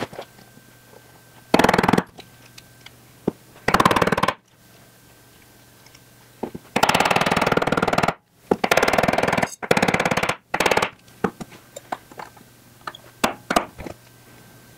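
Claw hammer driving a pin through a door-handle ring and gear, in several bursts of rapid taps, the longest and loudest about seven to eleven seconds in. Lighter clicks of small metal parts being handled follow near the end.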